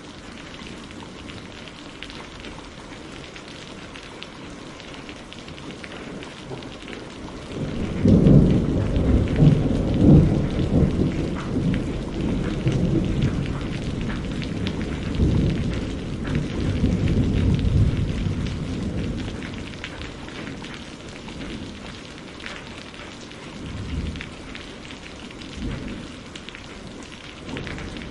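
Steady rain hissing, with a long roll of thunder that breaks in suddenly about a third of the way through, rumbles for around ten seconds and then fades, followed by two smaller rumbles near the end.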